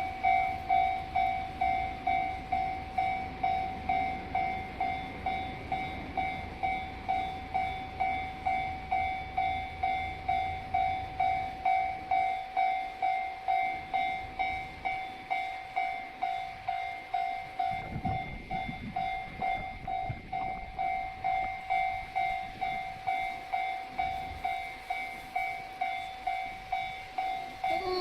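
Japanese level-crossing warning bell ringing its steady 'kan-kan' a little under two strikes a second. Through the first dozen seconds a train rumbles past the crossing.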